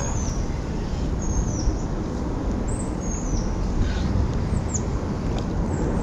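A bird calling repeatedly with short, high chirps that fall in pitch, about one every second. Under the chirps runs a steady low rumble.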